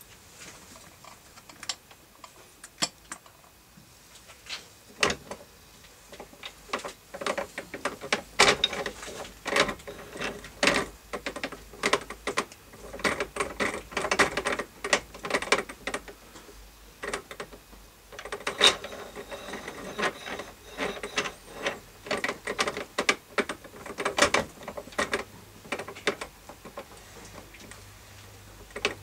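Irregular metallic clicks and clinks, some with a short ring, as metal parts on a homemade drill press head are worked by hand. They come thick and fast through the middle and thin out near the end.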